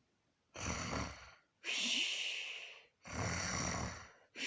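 A man snoring in slow, regular breaths. Deep rasping snores on the in-breath alternate with airy, hissing out-breaths, about two and a half seconds per cycle, starting about half a second in.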